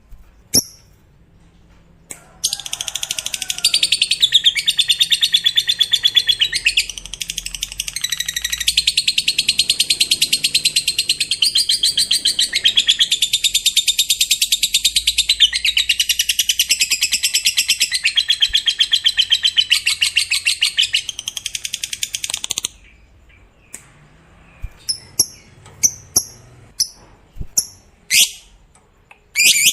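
Lovebird singing a long ngekek: a rapid, unbroken, high-pitched chattering trill that runs for about twenty seconds and then stops, followed by a few short, separate chirps near the end. A few short chirps come before the trill starts.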